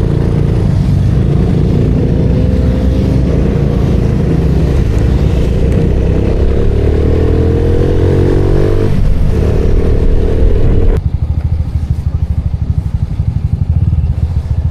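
Small motorcycle engine running under way, its pitch climbing as it accelerates between about six and nine seconds in. About eleven seconds in, the sound changes abruptly to a lower, pulsing engine note.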